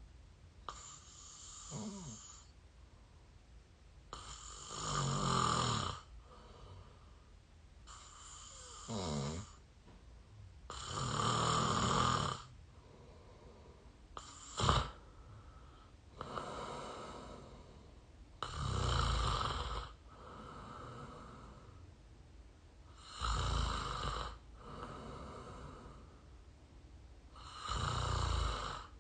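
A person snoring through the mouth, recorded close up. Louder snores alternate with softer ones in a repeating breathing rhythm, a burst every two to three seconds. There is one short, sharp catch about halfway through.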